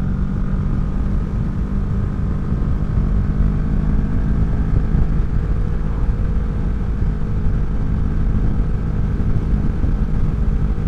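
Kawasaki Vulcan 650 S parallel-twin running at a steady cruise through a CS Racing aftermarket exhaust, holding an even pitch, heard from the rider's seat with wind rush on the microphone.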